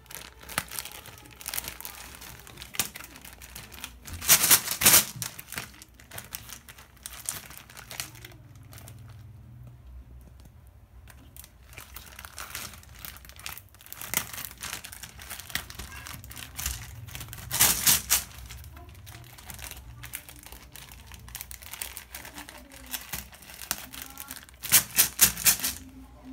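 Plastic bags of glass aquarium gems crinkling as they are handled, with scattered clicks and three louder bursts of rustling: one about four seconds in, one in the middle and one near the end.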